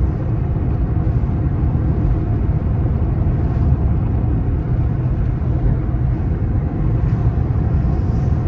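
Steady road and engine noise inside a moving car's cabin, the tyres rumbling on the road at a constant speed.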